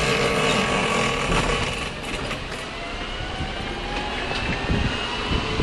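Small electric car driving over city streets: a continuous rattle of the body and wheels, with a thin motor whine that rises slowly in pitch from about two seconds in.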